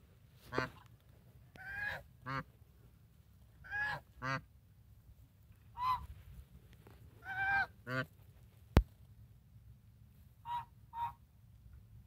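African geese honking: about ten short honks, often in pairs, a few of them longer and drawn out. A single sharp click comes about nine seconds in.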